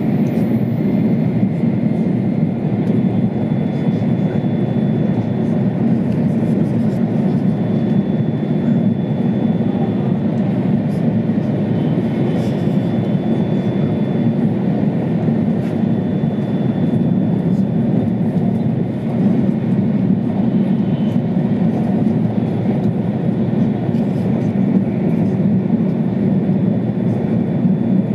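Steady low rumble of an E2-series Tohoku Shinkansen train running at speed, heard from inside the passenger cabin, with a faint high whine coming and going.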